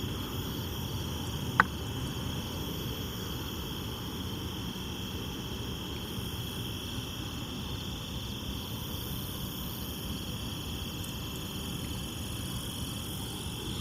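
Steady chorus of crickets, with one sharp click about a second and a half in.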